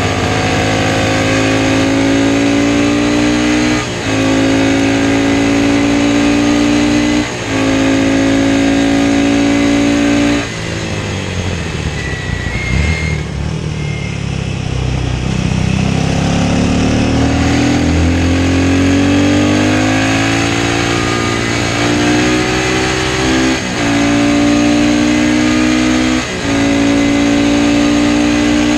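Classic racing motorcycle engine under hard acceleration, the note cutting briefly three times for quick upshifts in the first ten seconds. About ten seconds in the throttle closes and the engine drops to a lower, uneven sound for several seconds. It then revs up again, rising in pitch, with two more upshifts near the end.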